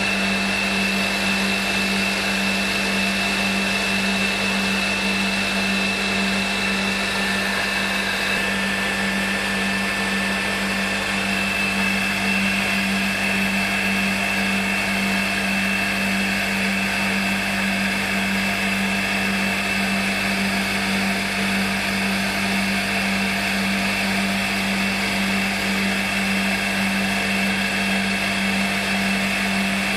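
CNC milling machine spindle running steadily, with a high whine over a low hum, as a small sharp cutter is fed slowly into a metal part.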